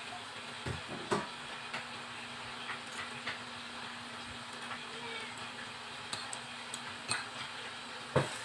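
Spoon and fork clinking and scraping on a plate as food is eaten, in scattered light clicks with the loudest near the end, over a faint steady hum.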